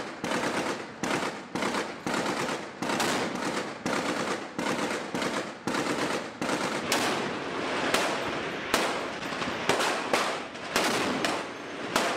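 Rapid, irregular gunfire: a dense string of sharp shots, a few a second, over a constant rushing background.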